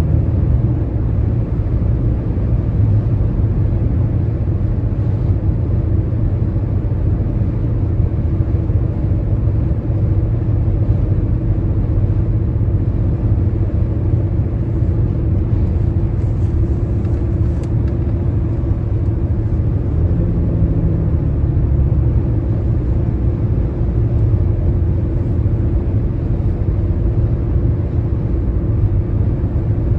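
Car travelling at highway speed: a steady low road and tyre rumble with a faint constant hum.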